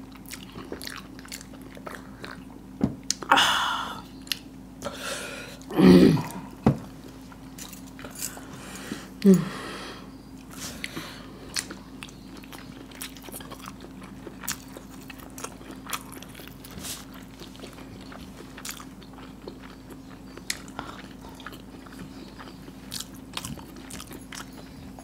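Close-up chewing and biting of hard-boiled eggs coated in spicy masala gravy, with many small wet mouth clicks throughout. A few short louder mouth sounds stand out about three, six and nine seconds in, the last two falling in pitch, over a steady low hum.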